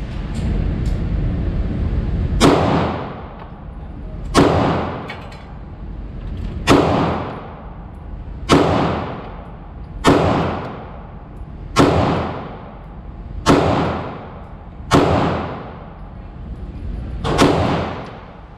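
Slow, deliberate aimed fire from a Glock 19X 9mm pistol: nine single shots about one and a half to two and a half seconds apart, starting about two and a half seconds in. Each shot rings out in a short echo.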